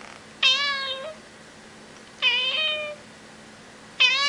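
A grey tabby cat meowing loudly three times, each meow a little over half a second long and dipping slightly in pitch, spaced a little under two seconds apart.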